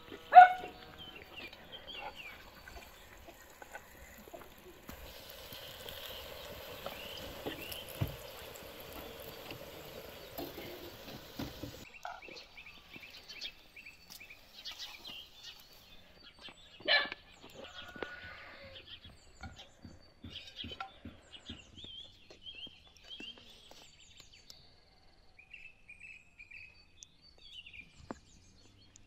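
A dog barks sharply at the start and once more about halfway through. Birds chirp toward the end over a quiet outdoor background.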